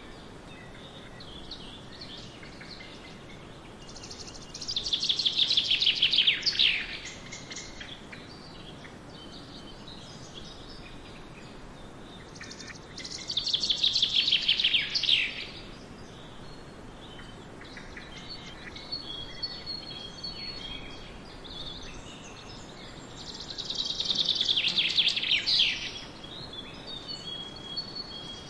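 A bird calling a loud, rapid trill that falls in pitch, about two seconds long, three times roughly ten seconds apart, with fainter bird chirps in between over a steady outdoor hiss.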